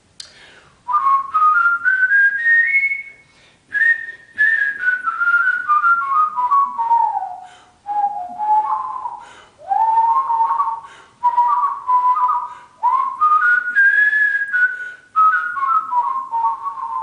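A man whistling a tune through pursed lips, a single clear tone stepping up and down in short phrases, with quick clean jumps between notes made with the tongue (warbling).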